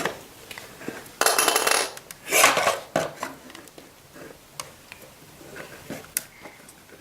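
Plastic pieces of a Play-Doh pony hair set clicking and clattering as they are handled, with a few short rustling scrapes.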